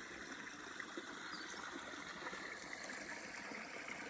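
Creek water flowing and trickling in a steady, even rush.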